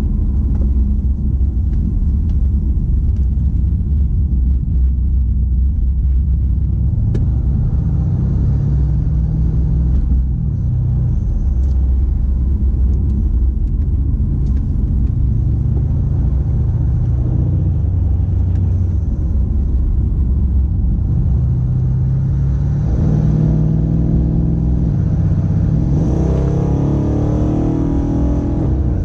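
Twin-turbo 5.8-litre V8 of a tuned Mercedes E63 AMG coupe running under way with a steady low rumble, revs climbing under acceleration twice in the last few seconds, with road and tyre noise underneath.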